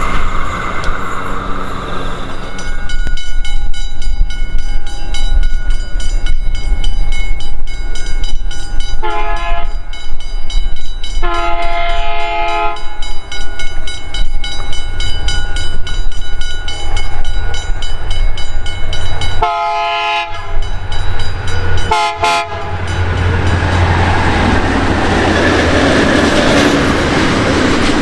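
Diesel-hauled freight train running past, its horn sounded in several blasts: a short one, then a longer one about two seconds later, and two more short ones near the end, over the steady rumble of the locomotive and wagons on the rails.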